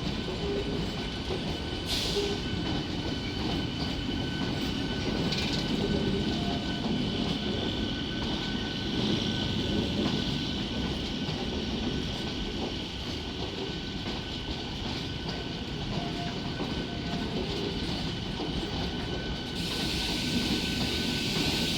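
Passenger train running on its rails with a continuous rumble and clickety-clack, and a faint steady high tone over it. A hiss starts near the end.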